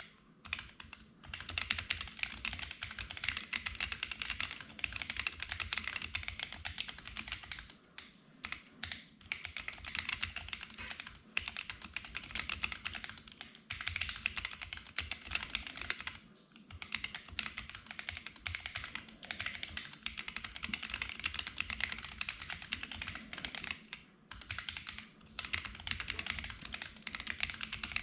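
Typing on a Sofle v2 split mechanical keyboard with lubed Gazzew U4T Boba tactile switches under MT3 keycaps: a dense stream of keystrokes that starts about a second in and breaks off for short pauses every few seconds.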